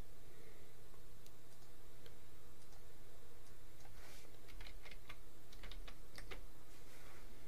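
Computer keyboard keys tapped in a quick run of clicks from about four seconds in, as numbers are typed, over a steady low hum.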